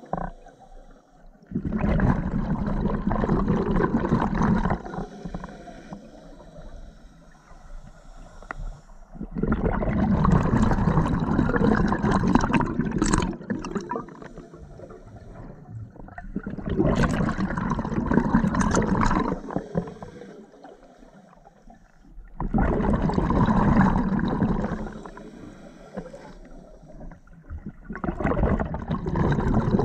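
Scuba diver breathing on an open-circuit regulator underwater: a bubbling rush of exhaled bubbles every six seconds or so, each lasting two to three seconds, with quieter inhalation hiss between.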